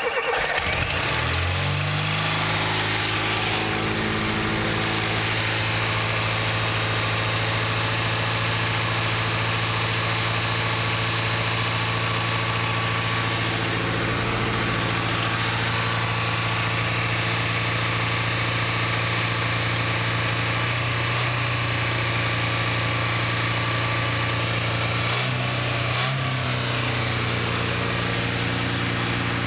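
Carburetted car engine idling steadily with the choke pulled fully out, its speed picking up over the first couple of seconds after starting and then holding even. About 25 seconds in the idle wavers briefly.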